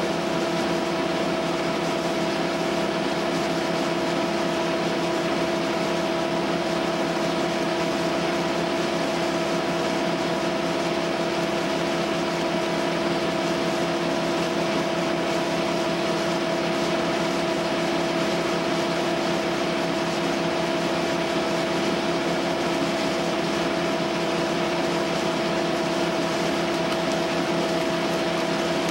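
Wood chipper running at a steady speed with no change in load, a constant motor drone with a steady hum.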